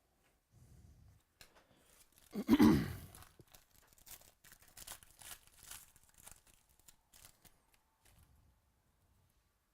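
Foil wrapper of a trading-card pack being torn open: one loud rip about two and a half seconds in, then crinkling and light crackles as the wrapper and cards are handled.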